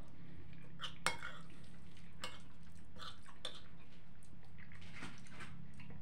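Metal fork clinking and scraping on a ceramic plate of buckwheat, with quiet chewing between the clicks. The sharpest clink comes about a second in, over a steady low hum.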